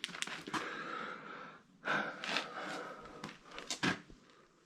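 Handling noises: a series of sharp clicks and short rustling scuffs, unevenly spaced.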